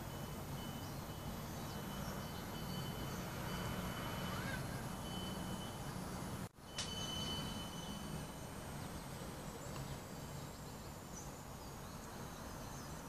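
Low, wavering droning hum under outdoor ambience with a few faint bird chirps, which the recordist takes for a mysterious sky sound. The sound briefly cuts out about six and a half seconds in.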